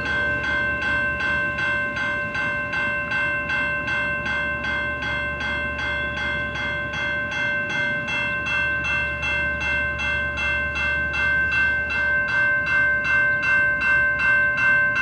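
Railroad crossing bell ringing in a fast, even rhythm while the crossing is activated for an approaching train, over a low steady hum.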